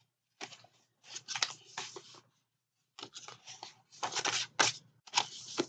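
Paper being handled, rustling and crinkling in several short bursts.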